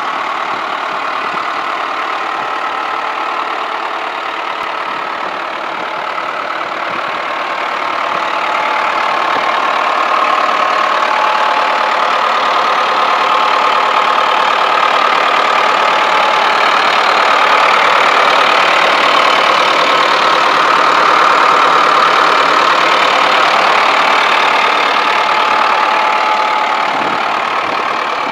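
Diesel engine of a Case 4240 loader tractor idling steadily, growing louder about a third of the way in and easing off near the end.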